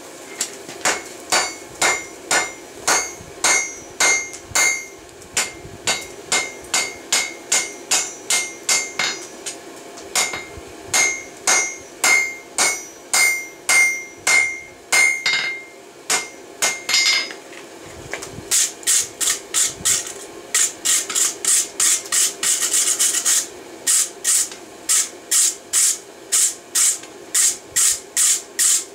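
Hand hammer striking a white-hot bundle of three railroad spikes on a Peddinghaus anvil, forge-welding them together: steady ringing blows about two a second, a short pause a little past the middle, then a quicker, brighter run of blows.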